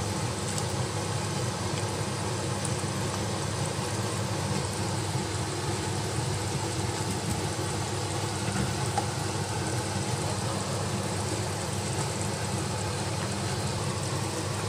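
Pork bone soup with corn and carrots boiling vigorously in a stainless-steel pot, a steady bubbling and hissing.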